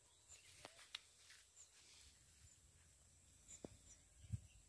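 Near silence: faint outdoor ambience with a few scattered faint clicks and a short low thud near the end.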